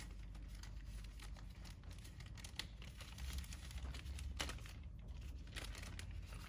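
Plastic packaging of a brake master cylinder rebuild kit crinkling as it is handled and opened, in scattered faint crackles.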